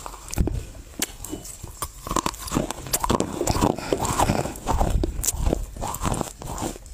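Dry Chinese loess clay being bitten and chewed right at a clip-on microphone: a string of sharp crunches and crackles.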